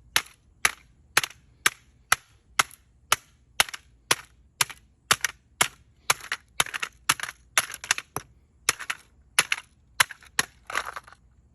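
Hammer striking a plastic smoke alarm over and over, about two sharp blows a second, with some blows landing in quick pairs in the second half.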